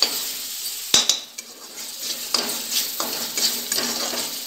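A metal spoon scraping and clinking against a kadai as green coriander masala is stirred and roasted, with a light sizzle underneath. There is one sharp clink about a second in, then a run of short scraping strokes.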